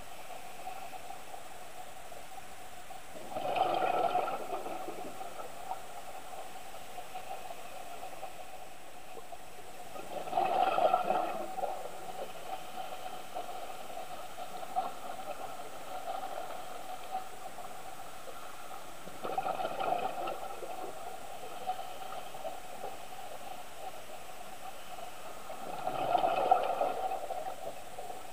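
Scuba diver's regulator heard underwater: four exhalations of bubbles about seven seconds apart, each lasting a second or two, over a steady faint hum.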